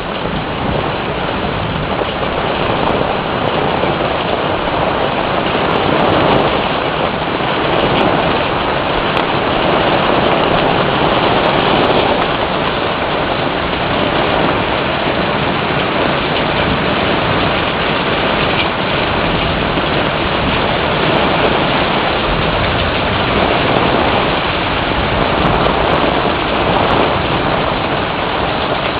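Heavy rain falling in a steady downpour, a continuous hiss that swells a little now and then.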